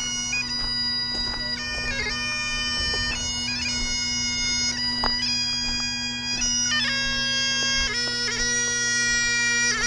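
Scottish Highland bagpipes playing a tune. The drones hold a steady low tone under the chanter's melody, which moves from note to note with quick grace-note flicks between them.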